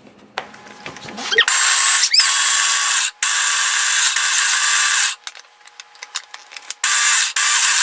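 Small electric food processor grinding dry oats into flour in four pulses of high-pitched motor whir. The first pulse starts about a second and a half in, and the pulses have short breaks between them. Before the first pulse there are a few clicks as the lid is fitted.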